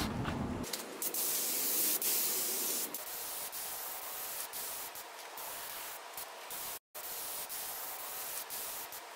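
Compressed-air spray gun hissing as it sprays primer thinned with acetone. The hiss is steady and broken by brief pauses.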